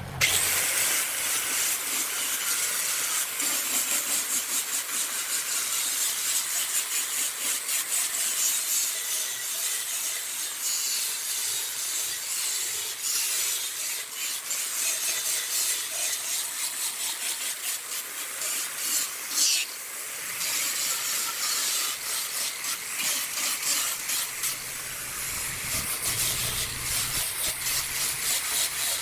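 A tool scraping against a spinning wooden workpiece on a wood lathe, making a steady hissing scrape throughout.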